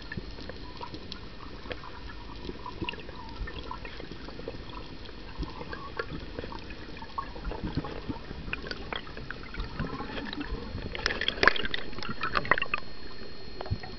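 Underwater sound picked up through a camera housing while freediving: a steady watery rush with scattered sharp crackling clicks, then a dense burst of louder clicks and bubbly crackling about eleven seconds in.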